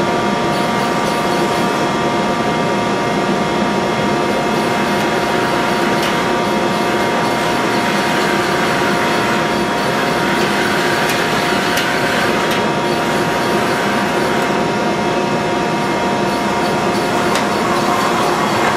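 Toshiba NX-76B CNC horizontal machining centre running: a steady mechanical noise with several constant whining tones and a few sharp clicks.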